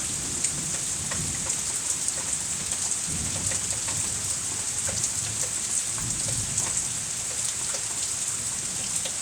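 Steady rain falling, with many small ticks of drops hitting close by and low rumbles of thunder now and then.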